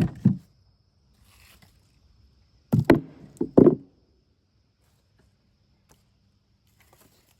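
Heavy wooden knocks of firewood: a pair right at the start and three more about three seconds in, each ringing briefly.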